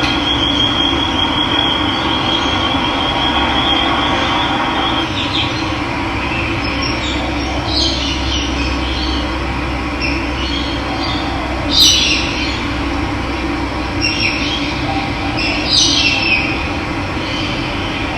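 Steady rush of running water, with birds calling over it: a high trill for the first few seconds, then sharp chirps a few times, loudest about twelve seconds in.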